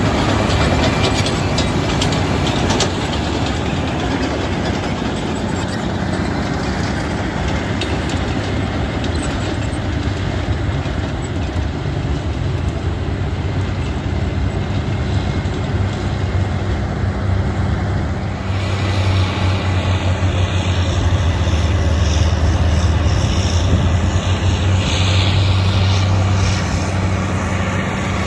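Heavy earthmoving machine's diesel engine running steadily under work, with some clanking early on. About two-thirds of the way through, the low engine hum gets louder.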